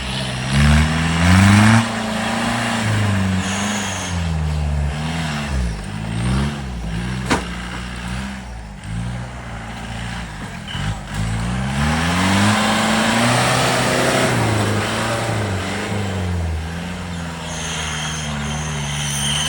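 Off-road 4x4 engine revving hard over and over, its pitch climbing and dropping every second or two as the throttle is worked. There is one sharp crack about seven seconds in.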